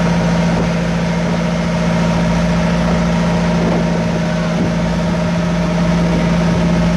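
An engine running steadily at a constant pitch, without revving.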